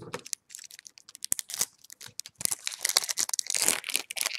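Shiny plastic baseball-card pack wrapper crinkling and crackling as it is handled and torn, a dense run of crackles that is busiest in the second half.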